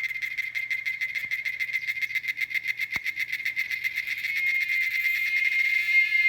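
Cicadas singing: a loud, high-pitched, rapidly pulsing buzz that turns smoother and a little louder near the end. A single sharp click sounds about halfway through.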